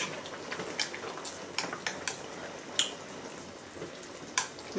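Eating sounds at a hot pot meal: scattered soft clicks from chopsticks and chewing, over the faint steady hiss of the simmering pot.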